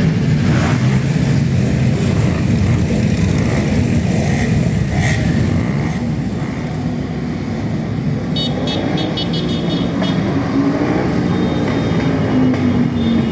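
A group of motorcycles riding past together, their engines running and revving, with pitch rising near the end. A run of rapid high beeps comes in about eight seconds in.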